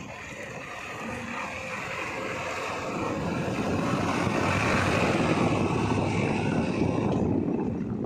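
Heavy diesel machinery engine running, growing louder from about three seconds in and easing off near the end.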